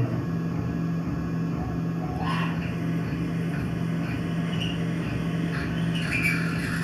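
Tormach PCNC 1100 CNC mill running while machining MIC6 cast aluminium plate: a steady machine hum with a low tone that cuts in and out, and brief higher sounds about two seconds in and near the end.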